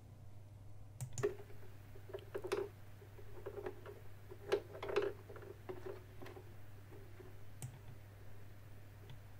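Faint, irregular small clicks and taps of fingers and thread against the plastic top of a Kenmore Model 12 sewing machine as thread is guided through the bobbin winding tension guide, with soft rubbing and a low steady hum underneath.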